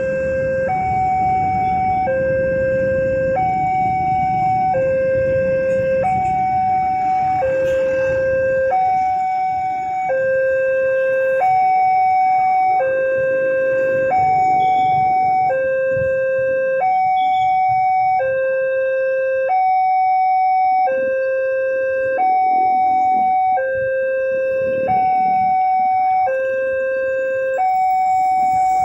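Railway level crossing warning alarm from the loudspeaker on the signal post: an electronic two-tone signal alternating steadily between a lower and a higher tone, each held about a second and a half. It sounds while the barrier is down, warning of an approaching train.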